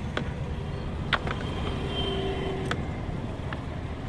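Cast net being handled over a plastic bucket: a handful of sharp clicks and taps as the net's lead sinkers and mesh knock against the bucket while fish are worked free, the loudest a little over a second in, over a steady low rumble of background traffic.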